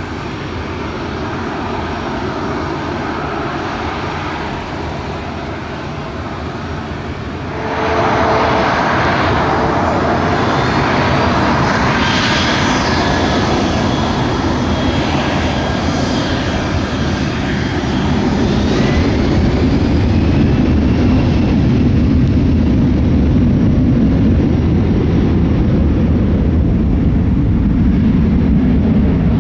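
Jet engines of a Boeing 737-300 freighter (CFM56-3 turbofans) running at takeoff power. The sound jumps sharply about eight seconds in as the aircraft passes, with a falling fan whine. A deep rumble then grows toward the end.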